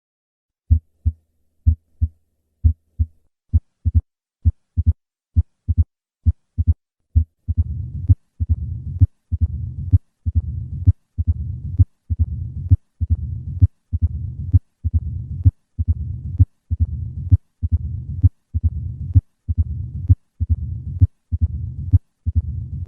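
Heart sounds through a stethoscope. There are three normal beats, then an extra high-pitched opening snap just after the second heart sound from about three seconds in. From about eight seconds in, a low-pitched, rumbling diastolic murmur fills each beat. These are the signs of mitral stenosis.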